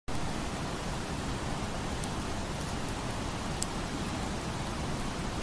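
Wood campfire burning: a steady hiss with a couple of faint crackles.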